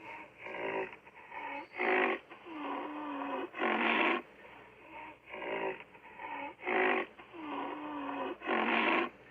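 Woolly rhinoceros sound effect: a series of animal calls, with a loud burst about every two seconds and quieter calls that bend in pitch between them.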